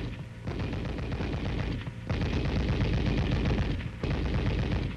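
7.62 mm M73 coaxial tank machine gun firing fully automatic, in three bursts of rapid shots with short breaks between them.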